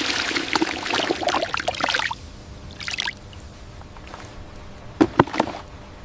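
Water pouring and splashing for about two seconds, then a shorter splash, with a few sharp knocks about five seconds in.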